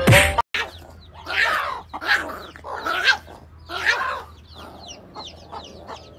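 A snatch of music cuts off in the first half second. Then a hen clucks repeatedly, with many short, high, falling peeps of chicks near the end.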